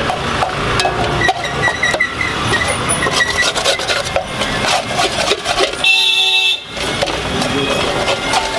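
A metal ladle scraping and clanking against a large pan as chopped onions, tomatoes and butter are stirred for paneer bhurji. A vehicle horn honks once, briefly, about six seconds in.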